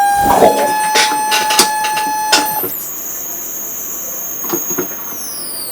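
Harsh electronic noise from a circuit-bent noise box: a steady whine with crackles and clicks, switching after about two and a half seconds to a piercing high whistle that slides down in pitch near the end.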